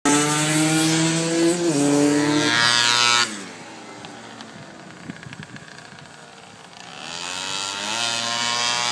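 Small motor scooter engine revving hard close by, its pitch climbing, then cutting off abruptly about three seconds in. A quieter stretch of distant scooter engine follows before another scooter engine rises in pitch and grows louder near the end.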